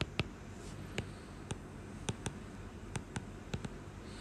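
Stylus tapping on a tablet screen while dots and strokes are drawn: about ten light, sharp clicks at irregular intervals, some in quick pairs, over a faint steady hiss.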